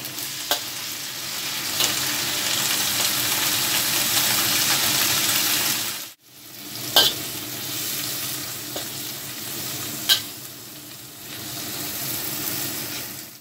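Indian lettuce and fried dace sizzling in a hot wok as they are stir-fried, with a metal spatula clinking against the wok a few times. The sizzle cuts out suddenly about six seconds in and comes back straight away.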